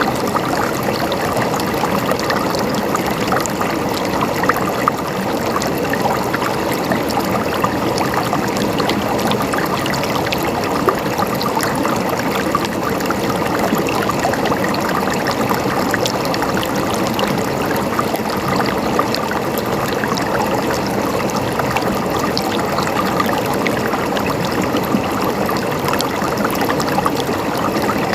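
Running water gurgling and splashing steadily, with no breaks or changes.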